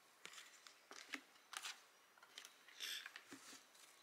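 Faint rustles and soft clicks of tarot cards being handled and laid down on a table, with a brief swish about three seconds in.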